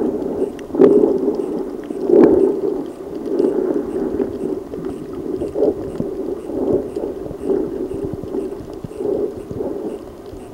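Muffled underwater water noise heard through a camera's waterproof housing, swelling and fading in uneven surges, with a couple of sharp knocks in the first few seconds.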